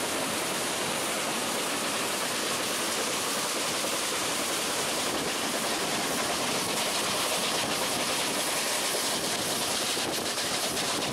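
Steam locomotive running at speed, heard from the cab with the microphone held out the side: a steady rush of wind and running noise, a little louder after about six seconds.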